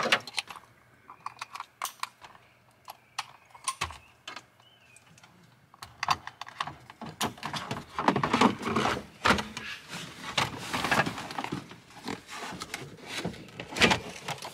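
Clicks, knocks and plastic rustling as wiring connectors are plugged in behind a truck's dash and a plastic dash trim bezel is handled into place. The clatter gets busier from about six seconds in.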